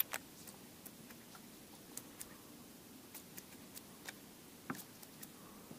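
Faint, irregular light clicks and ticks, a few a second, from a baitcasting rod and reel working a lure back, over a faint steady hiss. The sharpest click comes about three-quarters of the way through.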